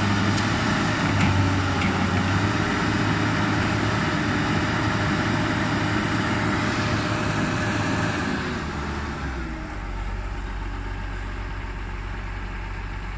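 Komatsu PC200 hydraulic excavator's diesel engine running close by while the machine works. The engine note drops and steadies about nine seconds in, as the engine eases off toward idle.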